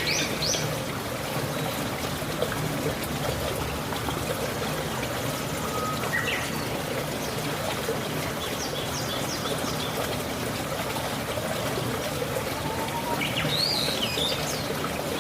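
Steady trickling, running water with birds chirping now and then over it, including a short run of quick high notes near the middle.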